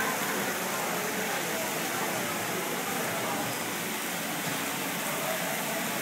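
Indoor water fountain splashing in a steady, even hiss, with faint voices of people in the background.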